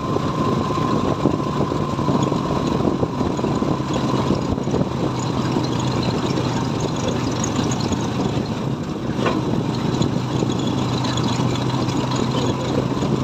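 Motorcycle engine of a passenger tricycle running steadily at cruising speed, with wind and road noise through the open sidecar.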